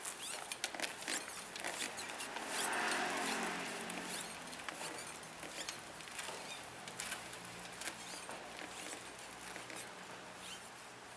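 Irregular light clicks and rattles of a manual wheelchair rolling over a concrete-tile pavement as it crosses the joints. A broad rushing sound swells and fades about two to four seconds in, followed by a faint low hum.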